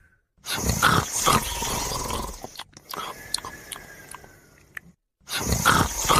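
Loud, rough snoring: one long snore starting about half a second in and another near the end, each lasting about two seconds, with a faint whistling breath between them.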